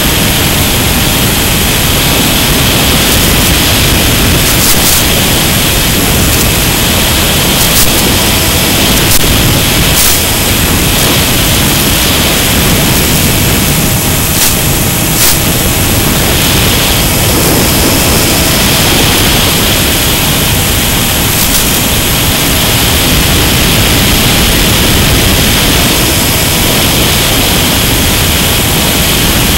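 Loud steady rush of wind and electric propeller noise on the camera's microphone aboard a Mini Skywalker FPV plane in flight, with a few brief crackles.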